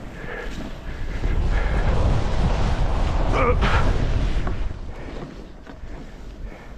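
Wind buffeting the microphone at riding speed, a loud low rumble from about a second in to about four and a half seconds in, with the hiss of a snowboard sliding over fresh snow.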